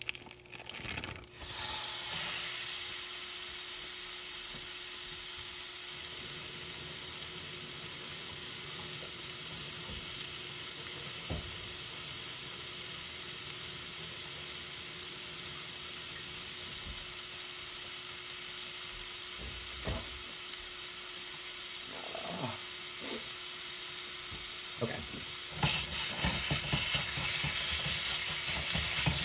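Ground pork frying in a hot skillet over garlic and ginger: the sizzle starts abruptly as the meat goes into the pan about a second and a half in and holds steady, with a few faint knocks. Near the end it gets louder and busier as a silicone spatula breaks up and stirs the meat.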